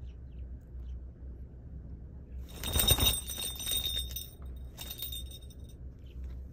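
Northern goshawk rousing, shaking its whole body about two and a half seconds in: a rustle of feathers for about two seconds with a high metallic jingle, and a shorter shake near the end. The shake is the sign that it has drunk its fill of water.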